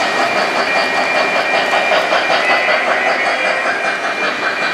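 Model trains rolling along the track, their wheels clicking over the rail joints with a steady rumble, and a thin steady high whine over it.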